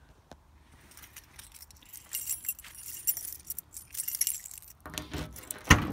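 A bunch of keys jangling as a key is worked into the trunk lock, then a loud clunk near the end as the lock releases and the trunk lid opens.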